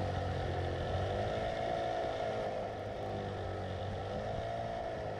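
Small boat's outboard motor running steadily, its pitch wavering slightly up and down.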